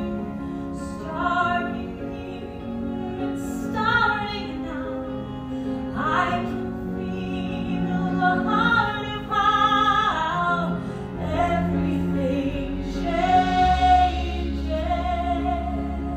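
A woman singing a slow musical-theatre song, with held notes that waver in vibrato, over a band accompaniment; deeper bass notes join about two-thirds of the way through.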